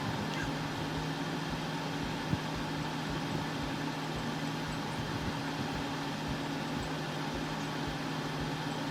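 A steady electrical-machine hum with a constant pitch and some hiss, like a running fan or appliance in the room. Faint, soft low knocks come and go, one a little louder about two seconds in.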